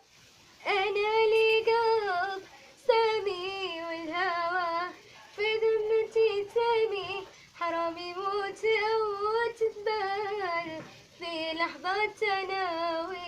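A woman's high voice singing alone in Arabic style, in five long ornamented phrases with wide vibrato and short breaths between them.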